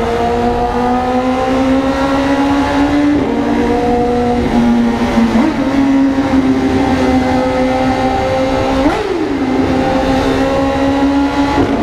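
Vehicle engine running through a loud 'granada' muffler, its note holding steady and slowly climbing, stepping in pitch a few times as the revs change. Just before nine seconds in there is a quick rev up and back down.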